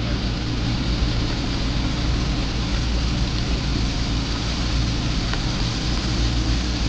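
Raw meats, pork belly among them, sizzling on a table-top barbecue grill: a steady hiss over a constant low drone.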